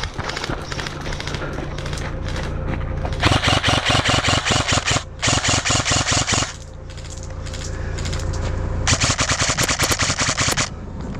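Airsoft gun firing on full-auto in three long bursts, a rapid even clatter of shots, over a steady low hum.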